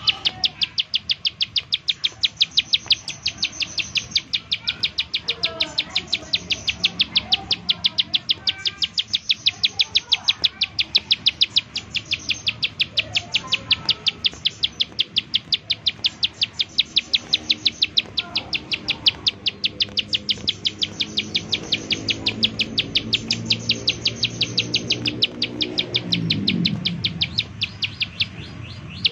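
Ciblek sawah (plain prinia) singing its rapid 'nembak' song: a fast, even, unbroken run of sharp high notes, several a second. Near the end a lower sound, falling in pitch, swells faintly in the background.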